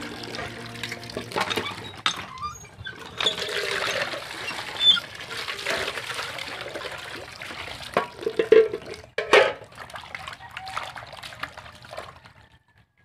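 Water running from a pipe into an aluminium pot and splashing as hands wash cut pieces of yellow corn, with sharp knocks of metal and corn against the pot now and then. The splashing dies down near the end.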